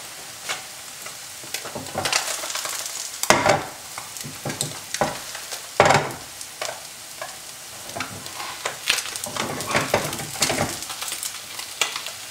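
Tofu slices frying in shallow oil in a stainless steel pan over low heat: a steady sizzle with frequent crackles and pops, the sharpest about three and a half and six seconds in.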